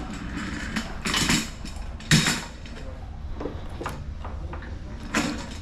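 Bike parts being handled on a workbench: a few short bursts of clatter and scraping, with the clearest about a second in, about two seconds in, and near the end.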